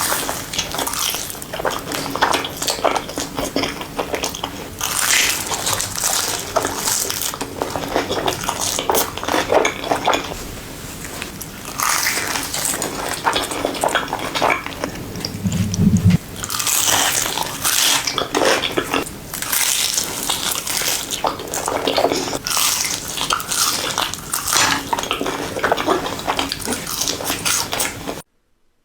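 Close-miked mukbang eating: repeated bites and chewing, with a short low hum about sixteen seconds in. The sound cuts off sharply just before the end.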